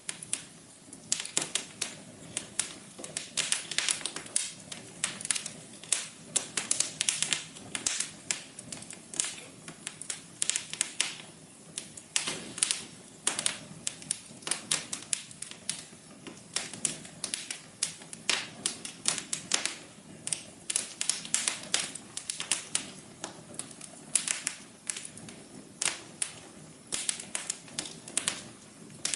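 Wood fire crackling in a fireplace: a dense, irregular run of sharp pops and snaps over a soft steady hiss.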